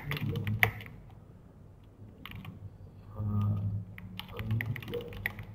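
Typing on a computer keyboard: quick keystroke clicks in bursts, with a pause of about a second and a half in the middle before the typing picks up again near the end.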